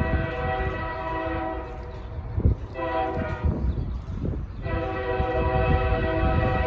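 Diesel locomotive's multi-chime air horn on an approaching CSX intermodal freight, sounding a long blast, a short one and a long one, over the low rumble of the train.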